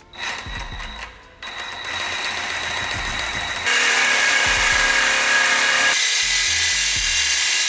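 A high-speed power tool with a steady whine, cutting a length of exhaust pipe. It gets much louder and harsher about halfway through.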